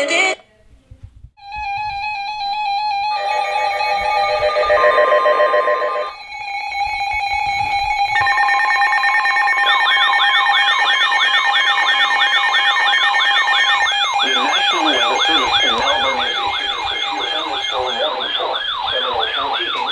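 Synthesized emergency alert tones: a warbling steady tone starts about a second in, more steady tones stack on top of it, and from about halfway through, fast repeating sweeps, about two a second, layer in like a siren.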